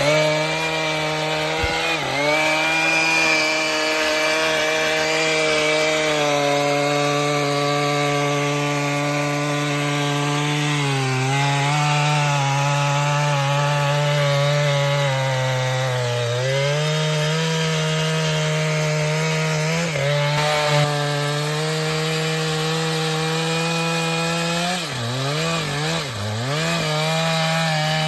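Chainsaw running at full throttle while cutting through wood, its high engine note sagging under load several times (about 2 s, 11 s, 16 s, and twice near the end) and climbing back each time.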